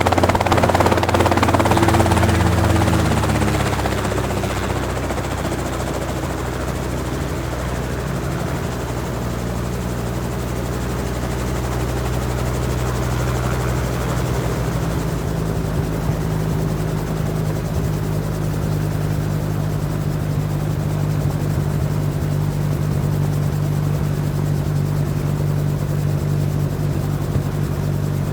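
Helicopter rotor and engine. Loud at first, then the pitch falls and it quietens about three to four seconds in, settling into a steady low drone with a fast, even rotor beat; the low tone steps up in pitch about halfway through.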